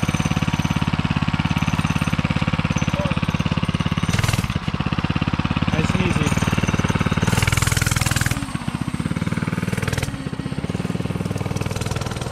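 Coleman CC100X mini bike's 99cc single-cylinder engine running with a rapid, even firing pulse. It gets louder briefly about four seconds in and again for about a second around seven to eight seconds, then runs quieter near the end.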